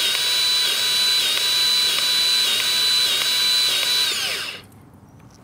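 Battery-powered grease gun's motor running with a steady whine, pumping grease through its hose into a trailer wheel hub's bearing buddy to fill it until the spring piston rises. A little after four seconds in the trigger is released and the whine falls in pitch and stops.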